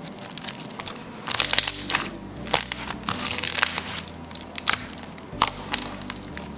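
Pink slime with large foam beads being squeezed and pressed by hand, giving irregular crunchy crackles and pops in clusters.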